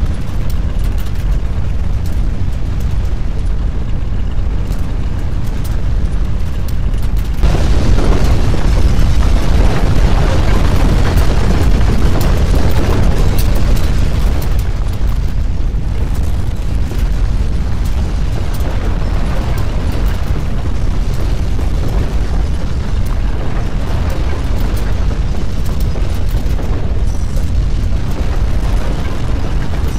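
Deep, continuous earthquake rumble, the simulated sound of strong ground shaking. It swells suddenly louder and fuller about seven and a half seconds in, stays at its loudest for several seconds, then eases a little but keeps going.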